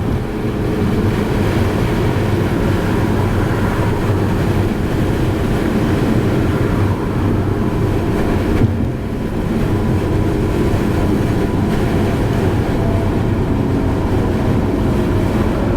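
Steady road and engine rumble from a car driving along, with one brief knock about eight and a half seconds in.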